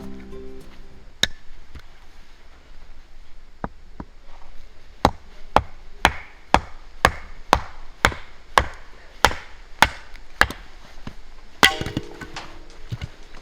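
Firewood being split by hand: sharp wooden knocks, a few spaced strikes at first, then a steady run of about two strikes a second, and one last strong strike near the end.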